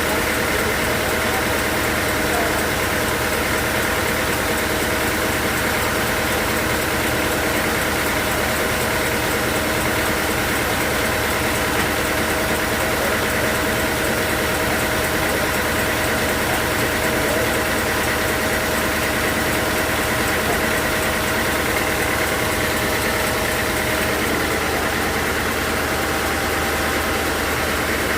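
Sawmill machinery running steadily, a constant engine-like drone that does not change.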